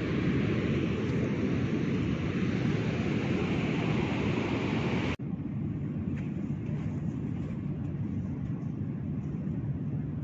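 Wind buffeting the microphone, a steady low rumble with some hiss above it. About five seconds in it cuts off suddenly and goes on quieter and duller.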